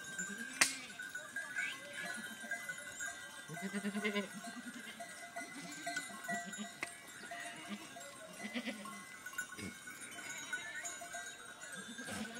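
Goats and sheep bleating several times, each call wavering and a few seconds apart. A single sharp knock about half a second in.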